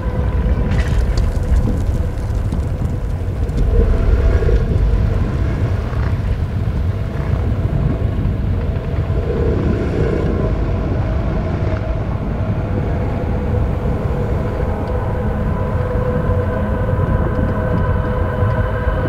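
Ambient soundscore: a deep, steady rumble with several sustained tones held above it, swelling slightly about four seconds in.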